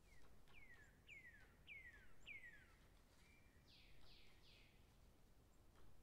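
A songbird singing faintly: a phrase of about five clear whistled notes, each sliding downward, followed by a short level note and three quicker, higher falling notes. Faint rustles of leaf litter sound under it.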